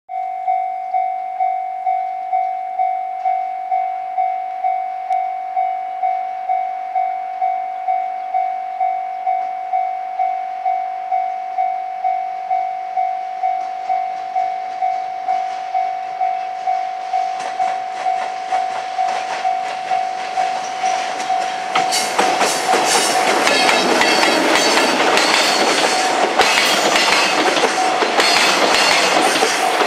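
A level crossing warning bell rings steadily, about two strokes a second, and the rumble of an approaching train rises beneath it. About 22 seconds in, an EF510 electric locomotive and its container wagons pass close by, their wheels clattering over the rail joints and drowning out the bell.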